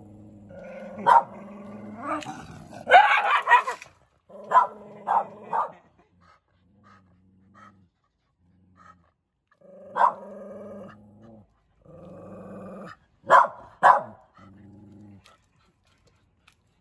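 Shiba Inu dogs growling in long low rumbles, broken by sharp barks, several in quick succession about three seconds in and a pair near the end.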